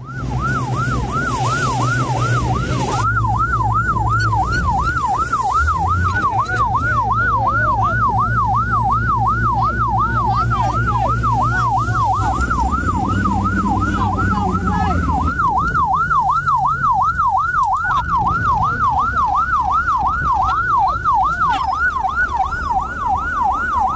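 Patrol boat's electronic siren in rapid yelp mode, its pitch sweeping up and down about three times a second, over the low rumble of the boat's engine and wind.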